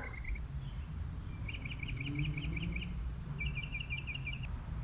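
A small songbird singing two rapid trills of evenly repeated high chirps, each about a second long, with a short pause between, over a low steady rumble.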